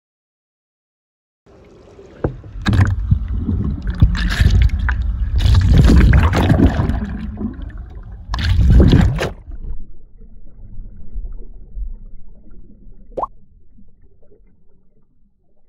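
Muffled water churning and bubbling around an underwater phone as a swimmer does breaststroke, in loud surges with each stroke. It fades to a faint gurgle, with a short rising bloop near the end.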